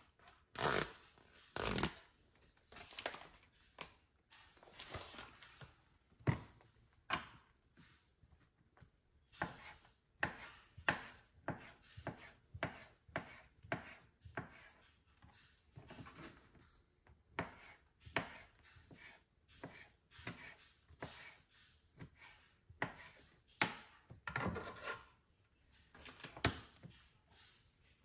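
Chef's knife cutting sliced deli turkey on a plastic cutting board: a long run of short, irregular knocks of the blade hitting the board, about one to two a second. Two louder knocks come near the start.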